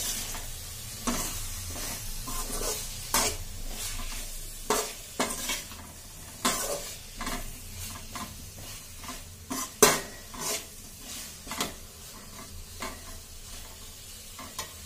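A ladle stirring and scraping diced capsicum and onion as they fry in oil in a metal kadai, over a steady sizzle. The scrapes come irregularly, the loudest about ten seconds in.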